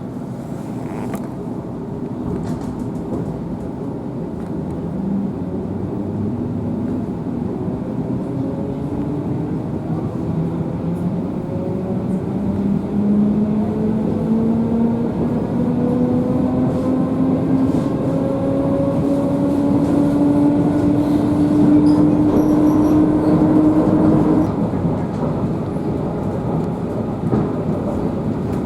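Suburban electric train's traction motors whining, the whine rising slowly in pitch as the train picks up speed, over the running rumble of the wheels on the track. The whine cuts off suddenly near the end, while the rumble goes on.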